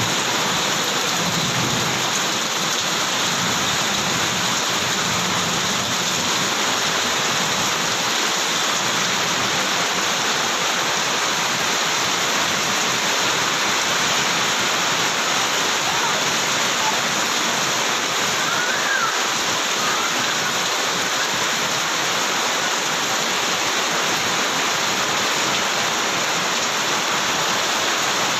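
Super heavy rain pouring down, a dense, steady hiss that does not let up.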